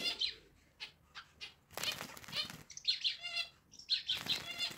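Zebra finch bathing in a small plastic tub of water, fluttering its wings and splashing in short bursts. In the second half come runs of short nasal calls.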